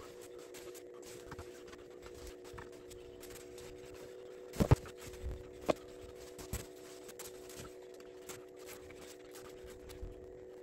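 A steady hum throughout, with a few sharp knocks and taps: a loud double knock about halfway through, two single ones shortly after, and a faint one near the end.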